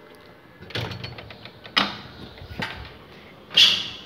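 A glass-panelled door being opened and shut: a quick run of rattling clicks from the handle and latch, then two sharp knocks, and a loud short scraping swish near the end.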